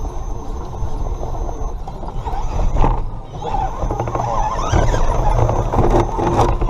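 Redcat Gen7 Pro RC rock crawler's electric motor and gears whining as it crawls over the course, heard close through its onboard camera, with low rumble and a couple of sharp knocks as it works over the rocks.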